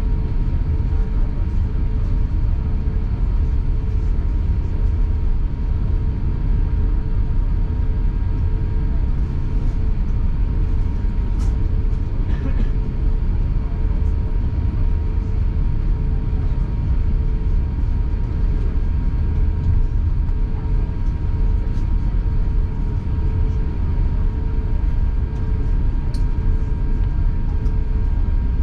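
Cabin noise of an Airbus A350-900 taxiing with its Rolls-Royce Trent XWB engines at idle: a steady low rumble with a steady whine. Faint ticks now and then.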